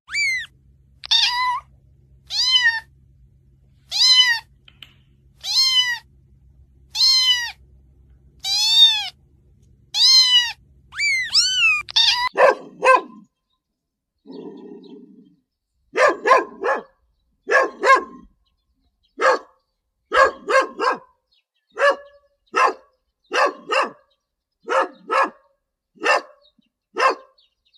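About eleven high meows, each rising then falling in pitch, spaced a second or so apart, with a low hum underneath. About twelve seconds in they give way to a different animal's short, sharp calls, repeated in quick pairs and triples.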